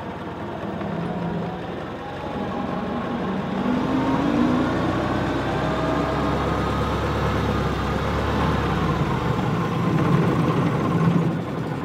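1922 Ford Model T fire truck's four-cylinder engine running as it drives along, getting louder and rising in pitch about four seconds in as it picks up speed.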